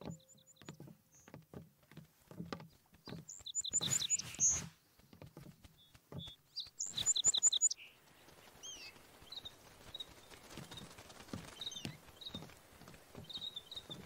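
Birds chirping in two quick bursts of rapid repeated notes amid scattered soft knocks, then faint outdoor ambience with occasional single chirps and short swooping calls.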